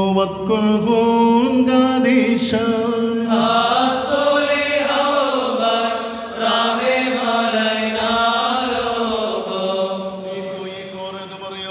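Syriac liturgical chant of the evening prayer: voices singing long held notes that bend up and down, growing a little softer near the end.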